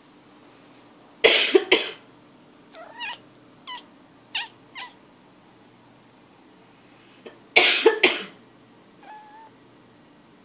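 A woman coughs in a loud double burst and a pet cat answers with several short meows; a few seconds later she coughs again and the cat gives one faint meow.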